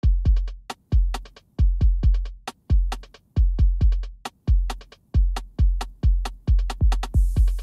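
Electronic beat on a drum machine: deep kicks with long fading low tails and sharp clicks in a quick, uneven pattern, with a short cymbal hiss near the end.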